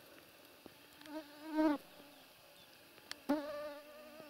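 A flying insect buzzing close to the microphone in two passes, a steady hum whose pitch wavers slightly: the first about a second in, the second starting past the three-second mark.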